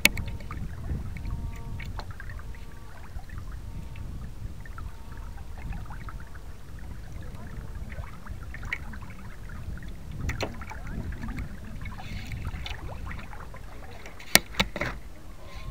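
Water rushing along the hull of a radio-controlled model sailboat under sail, with wind buffeting the onboard microphone as a steady low rumble. Sharp knocks about ten seconds in and a quick pair of louder ones near the end.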